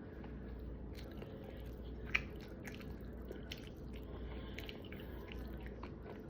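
Close-up chewing and biting of neck bone meat, with small wet mouth clicks and one sharper click about two seconds in, over a faint steady low hum.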